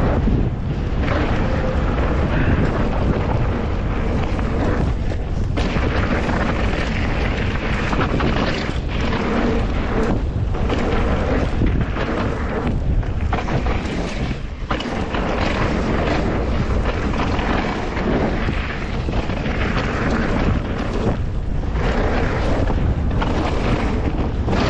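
Mountain bike ridden fast down a dirt trail: wind buffeting the microphone over the steady rumble of tyres on dirt and gravel, broken by frequent short knocks and jolts as the bike runs over bumps.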